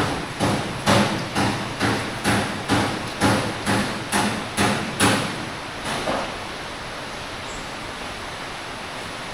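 Hammer blows in a workshop: a steady run of about a dozen sharp strikes, roughly two a second, that stops about six seconds in.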